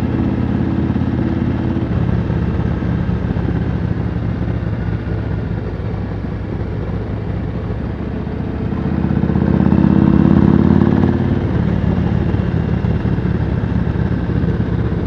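Yamaha Road Star V-twin cruiser motorcycle with loud pipes running steadily on the road; the engine note swells louder for a few seconds about nine seconds in, then settles back.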